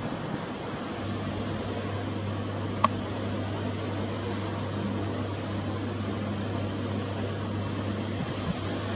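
A low, steady machine hum over a constant background hiss, starting about a second in and stopping near the end, with a single sharp click around three seconds in.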